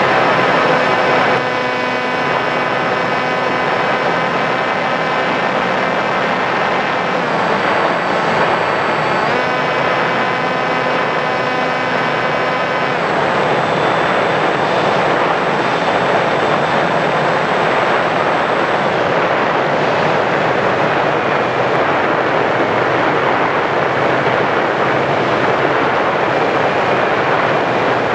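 Sky Surfer RC plane's electric motor and propeller whining steadily under wind rushing over the microphone. The pitch dips briefly about seven seconds in. About thirteen seconds in the motor cuts and only the wind rush remains as the plane glides down.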